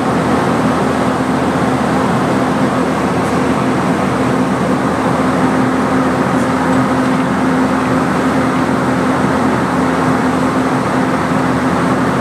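Compressed air rushing steadily from a leaking UL valve under a locomotive, with a steady hum underneath. The leak has cut off the locomotive's tractive effort.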